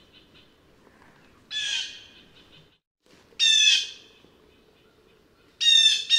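Blue jay calling: four loud calls, the first weaker than the others and the last two in quick succession near the end.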